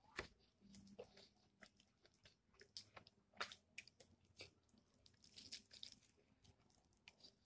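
Faint close-up eating of fried chicken: irregular crunches and crackles of the crispy coating as it is pulled apart and bitten, with chewing between them.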